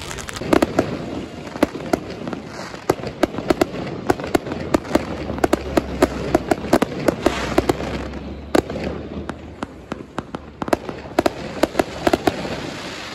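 Fireworks going off in quick succession: strings of sharp bangs and crackles, several a second, over a steady hiss, thinning briefly about nine seconds in.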